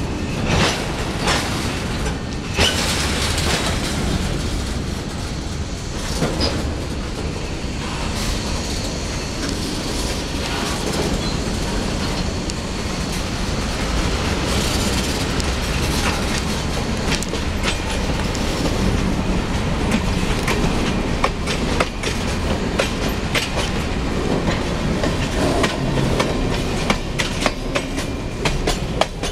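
Loaded freight train of covered hopper cars rolling past close by: a steady rumble of steel wheels on the rails, with irregular sharp clicks and knocks as the wheels cross the track.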